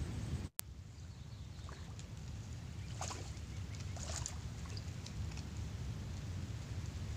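Steady low rumble of wind on the microphone, with a few light clicks and rustles around three to four seconds in as the fishing rod is lifted and recast.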